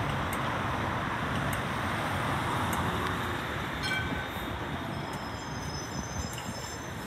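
Melbourne B-class tram rolling in and slowing to a stop, over steady street traffic noise. A brief high squeal comes about four seconds in, and a thin high squeal runs through the last couple of seconds.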